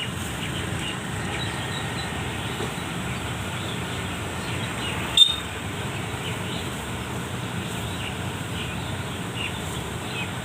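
Farm machine engine running steadily, with birds chirping faintly now and then. A single sharp click about halfway through is the loudest sound.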